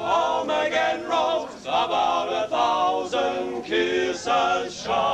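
A small group of young men singing together without accompaniment, in short sung phrases with brief breaths between them.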